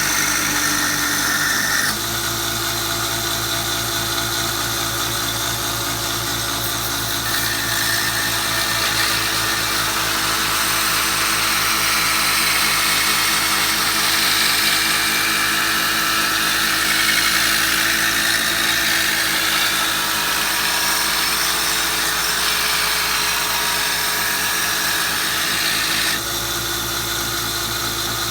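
Belt sander running, with the steel blade of a draw knife held against its abrasive belt and grinding. The grinding hiss comes in about two seconds in and eases off near the end, while the motor keeps running.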